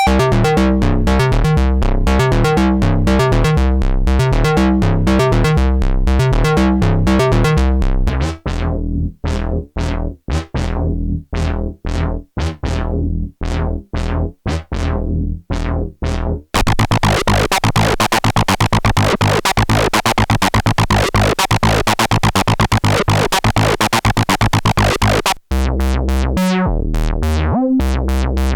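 Dreadbox Typhon monophonic analog synthesizer playing fast runs of short, bass-heavy notes that turn choppy about a third of the way in. Its sound changes abruptly twice, to a brighter, buzzier dense texture about two-thirds through and to a deep pulsing pattern near the end, as factory presets are switched.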